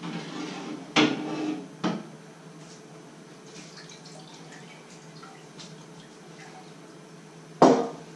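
Kitchen crockery clinking: a ceramic mug knocked about a second in with a short ringing, a lighter click just after, and a louder knock near the end as the mug is set down on the counter.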